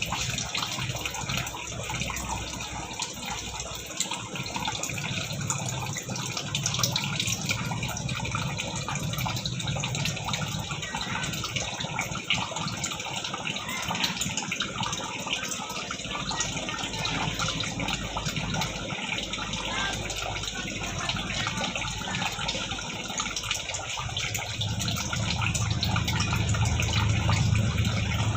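Tap water running steadily and splashing into a sink. Its lower, fuller sound grows louder near the end.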